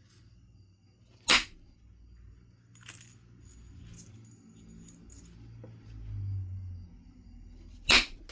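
Knife River Flint being knapped: two sharp, loud strikes on the stone about six and a half seconds apart, with a few lighter clicks of stone and tools in between and low handling noise as the piece is repositioned.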